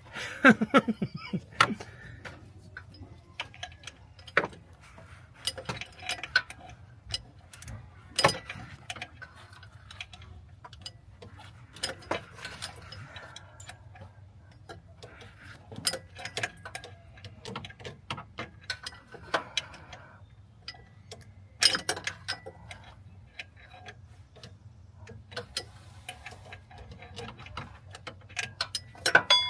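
Hand ratchet clicking in short, irregular runs with occasional sharper knocks of tools on metal, as the AC compressor bolts are worked with little room to swing.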